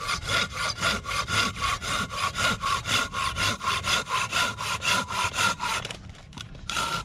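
Silky BigBoy folding hand saw cutting through a firewood log with quick, even back-and-forth strokes, about four a second, with a steady ringing note under the rasp. The strokes stop briefly near the end, then start again.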